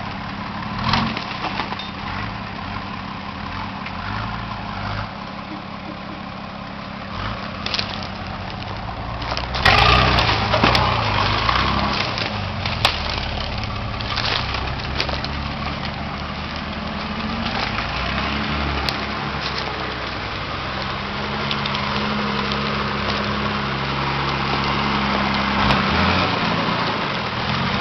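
Nissan Patrol GR (Y60) turbo-diesel engine running at low revs as the 4x4 crawls over rough forest ground. About ten seconds in it gets louder, with a stretch of sharp cracking and crunching, and later the engine note rises and falls as the revs change.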